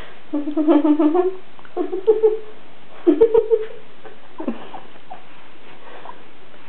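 A person's voice singing a simple tune in a few held notes, broken by short pauses, then stopping about halfway through.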